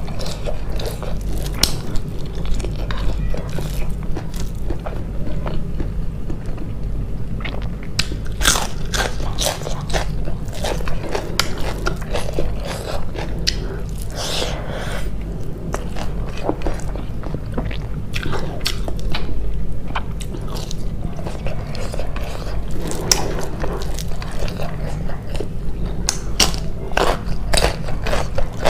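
Close-miked chewing and biting, with frequent short crisp crunches over a steady low hum.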